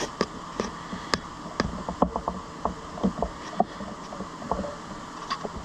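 Small Phillips screwdriver working a short machine screw into a tapped hole in a steel clamp jaw: many irregular small metal clicks and ticks as the tip seats and turns in the screw head, over a steady hum.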